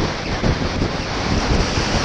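Heavy wind buffeting on a GoPro Session action camera's microphone while riding a motorcycle: a steady, loud rushing noise with irregular low gusts and no clear engine note above it.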